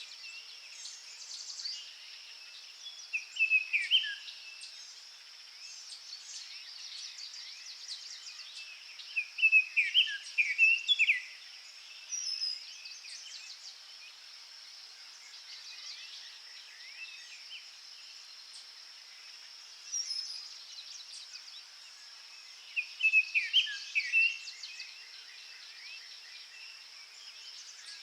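Small garden songbirds calling and singing, with three louder bouts of quick falling notes and a few softer calls between them, over a steady high-pitched background hiss.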